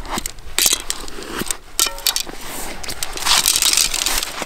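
Arrows being pulled out of a foam block archery target: scraping and crackling as the shafts drag through the foam, with scattered sharp clicks, the longest scrape about three seconds in.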